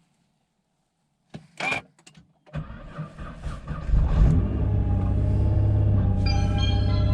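Nissan R35 GT-R's twin-turbo VR38DETT V6 started on a freshly fitted Optima Yellow Top battery: the starter cranks, the engine catches about four seconds in with a loud surge, then settles into a steady idle. A short clatter comes just before the cranking.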